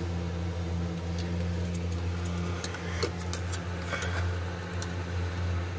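Light, scattered clicks and taps as a clear plastic square is handled against a boat's propeller shaft, over a steady low hum.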